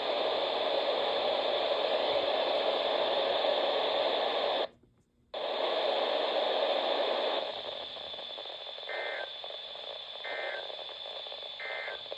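Weather-radio receiver static, an even hiss that cuts out for about half a second around five seconds in. After about seven seconds it drops to a quieter hiss, and three short two-tone data bursts of an EAS SAME alert header follow, about a second and a half apart.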